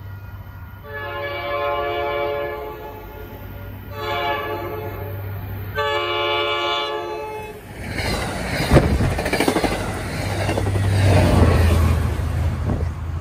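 MBTA commuter train's diesel locomotive sounding its multi-chime horn in three blasts: long, short, long. About eight seconds in, the train arrives with rising rail and wheel clatter, sharp knocks over the rails and a steady low engine drone, loudest near the end as the locomotive passes.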